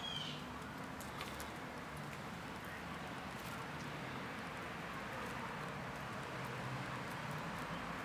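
Steady outdoor background hiss with a single short, high, falling bird chirp right at the start and a few faint scattered clicks.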